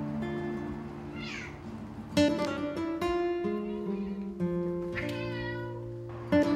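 Light background music with plucked guitar, with a cat meowing over it.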